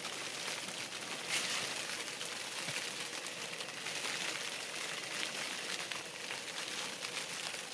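Steady fine patter of falling sleet and wet snow.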